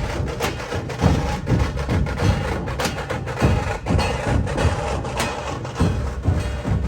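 Music with a steady percussion beat, low drum thumps about twice a second over sharp clicks.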